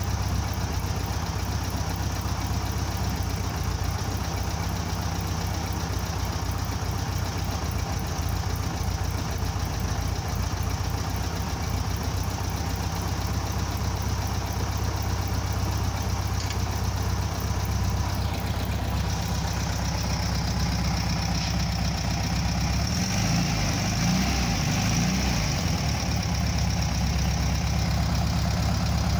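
VW 1300 Beetle's air-cooled flat-four engine idling steadily on a Solex 30 PIC carburettor set up with new jetting.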